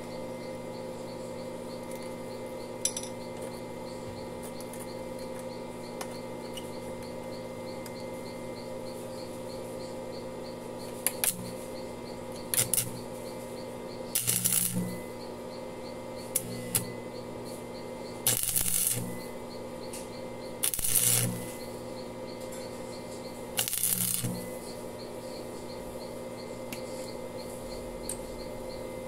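Stick welding arc struck in about seven short crackling bursts in the second half, each lasting from a fraction of a second to about a second, over a steady hum. These are short filler welds building up the worn passenger footpeg bracket to take up the play around its pivot pin.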